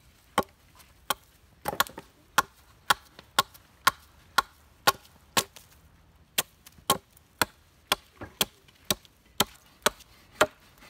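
A blade chopping at a piece of wood: sharp strokes about two a second, with a short pause about halfway through.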